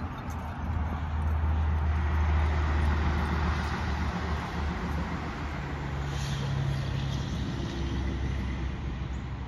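A motor vehicle engine's low hum, swelling a second or two in and then slowly fading, as of a car or truck going by.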